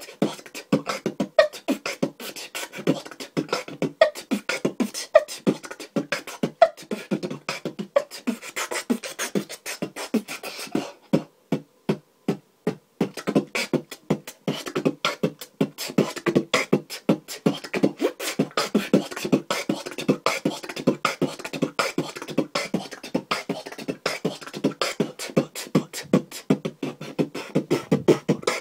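Fast, technical beatboxing by one young beatboxer: rapid strings of percussive mouth sounds. About eleven seconds in, the pattern thins to a few separate hits for a couple of seconds before the dense rhythm picks up again.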